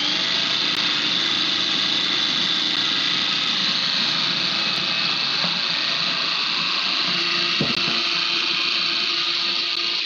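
Food processor motor running steadily, blending a thick pesto of basil, nuts, garlic and parmesan with olive oil.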